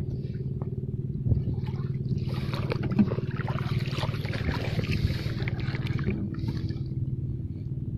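Water sloshing and splashing as someone wades through knee-deep water over a shallow reef flat, over a steady, even engine hum that stops near the end.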